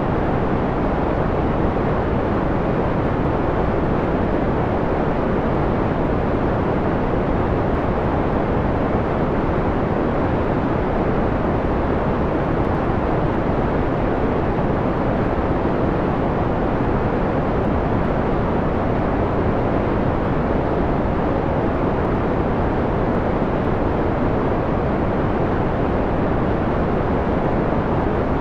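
Steady synthetic white noise dimmed to a mellow, dull tone: most of it sits low, the highs rolled off, unchanging throughout.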